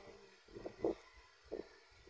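A few soft knocks and rustles from handling a USB charging cable and a power bank, the loudest a little under a second in.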